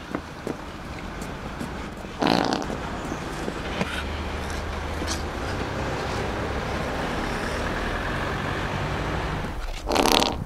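Street traffic noise with a low steady rumble. A loud, sudden burst of noise comes about two seconds in, and another near the end.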